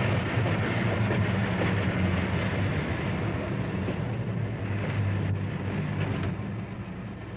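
Electric interurban railcar running on the track: a steady rumble with a low hum and one sharp click, getting quieter near the end.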